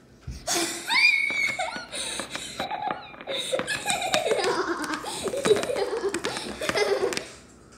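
High-pitched giggling laughter in a long run of repeated falling 'ha' bursts, with small sharp taps of a plastic toy figure knocking on a wooden tabletop.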